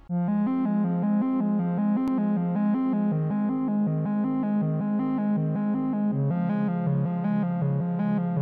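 Background music: a synthesizer piece of quick, evenly stepping notes over a repeating low figure, beginning suddenly at the outset.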